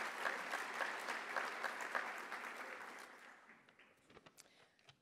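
Audience applauding, the clapping dying away from about three seconds in, with a few last scattered claps near the end.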